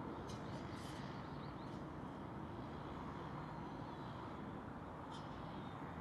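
Steady low outdoor rumble, like distant traffic, with a few short high bird chirps in the first two seconds and one more near the end.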